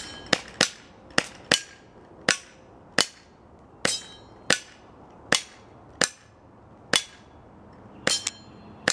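CO2 airsoft pistol firing about fourteen shots at an uneven, fairly quick pace, some in fast pairs. Each shot is a sharp crack with a brief ringing tail.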